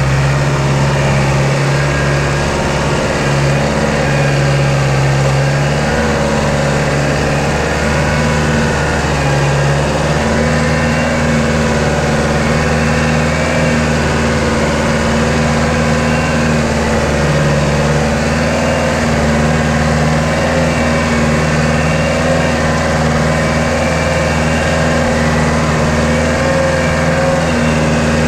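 Compact farm tractor's diesel engine running steadily at an even speed while hauling a loaded rice trailer through a flooded paddy.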